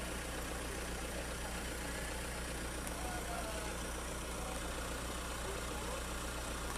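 A vehicle engine idling nearby: a steady low hum.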